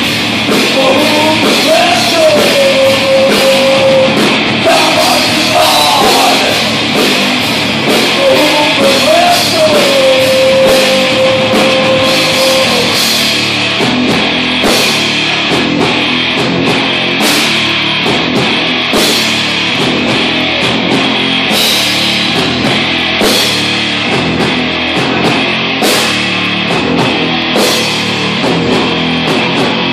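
Heavy metal band playing live, with distorted electric guitar and drum kit. A singer holds long, wavering notes during about the first twelve seconds, and the band then plays on without vocals, with steady drum hits.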